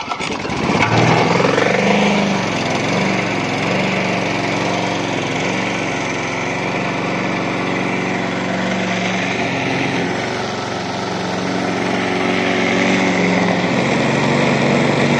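Briggs & Stratton single-cylinder lawn mower engine catching and running steadily on its first start after six months of storage on last summer's fuel. Its speed wavers a little, sagging about ten seconds in and picking up again.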